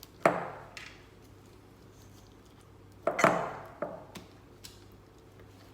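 Two sharp clatters of kitchen items being knocked or set down, about three seconds apart, each with a short ringing tail and followed by a few lighter clicks.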